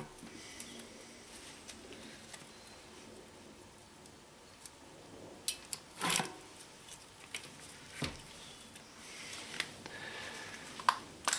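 Shimano XT 11-40 bicycle cassette sprockets being slid by hand onto a rear wheel's freehub body: faint scattered metallic clicks, with a louder brief clatter about six seconds in.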